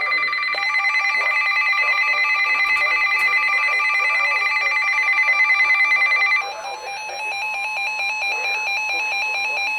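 Emergency weather alert tones: a steady electronic alarm tone, with a rapidly pulsing ringing electronic tone layered over it from about half a second in. The steady tone stops about six and a half seconds in, while the pulsing ringing carries on to the end.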